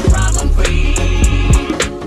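Background music with a deep, punchy kick drum about twice a second over a steady bass line, in a hip hop/R&B style.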